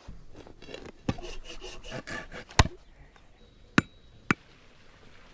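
Three sharp knocks of the back of an axe head striking a wooden stake, driving it into the ground. They follow a couple of seconds of scraping and rattling.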